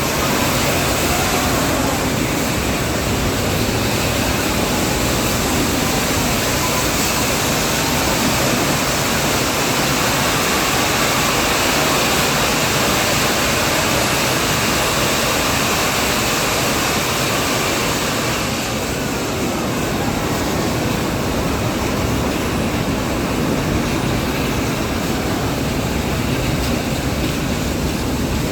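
Nilgiri toy train on the move: a steady rushing noise of the running carriage and passing air. It eases slightly about two-thirds of the way through.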